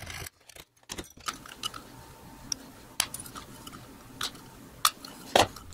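A handful of separate, sharp metallic clicks and clinks, irregularly spaced: tin snips cutting and clipping thin copper pipe, with metal tools handled on the bench.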